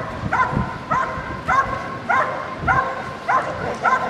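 Belgian Malinois barking steadily at a motionless helper, about seven evenly spaced barks, a little under two a second. This is the constant guarding bark of a protection-trial hold and bark.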